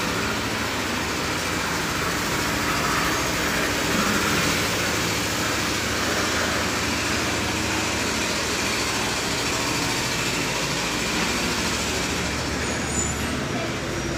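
Steady road-traffic noise: an even, unbroken hiss with no single vehicle standing out.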